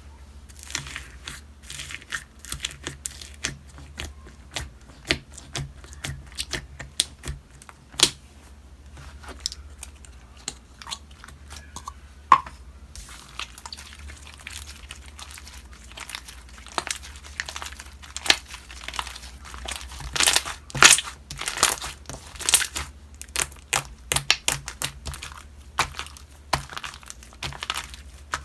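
Slime being squished, poked and stretched by hand, giving a close, continuous run of small crackling clicks and pops that grow busier and louder in the last third.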